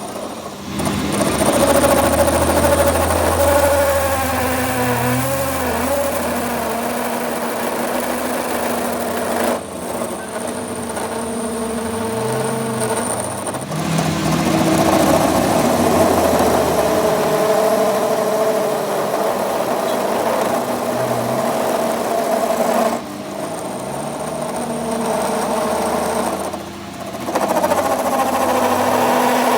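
A workshop machine's motor running steadily, its pitch wavering, with short dips in level about ten seconds in, again near fourteen seconds, and twice more in the last third.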